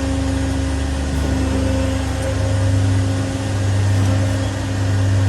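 Fasti CNC sheet-metal folding machine running its program cycle, its beam drive motors giving a steady mechanical hum with low tones that swells louder in the second half.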